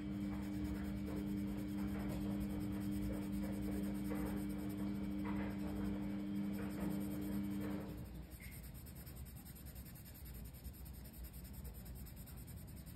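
Colored pencil scratching on a coloring-book page in repeated shading strokes. A steady low two-note hum runs underneath and cuts off about eight seconds in.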